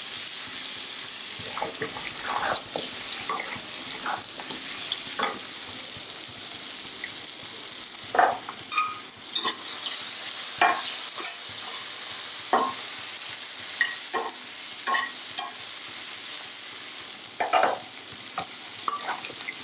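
Jackfruit seeds and spices frying in hot oil in a wok, sizzling steadily, while a metal spatula scrapes and clinks against the pan as they are stirred. Near the end the sizzle is of yard-long beans frying in a separate pan.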